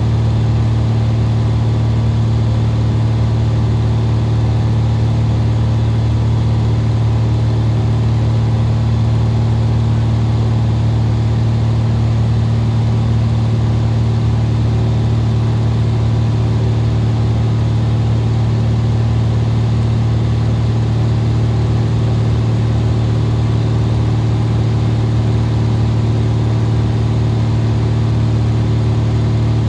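Single-engine Cessna RG's piston engine and propeller running steadily in flight: an even, unchanging drone with a strong low hum, heard from inside the cabin.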